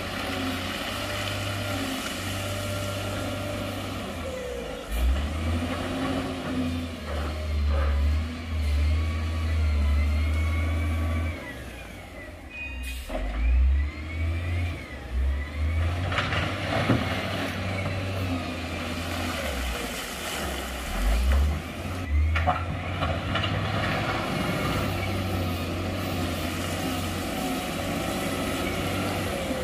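Heavy diesel engines of dump trucks and a wheel loader at work: a continuous low engine drone that revs up and falls back again and again, with a couple of sharp knocks.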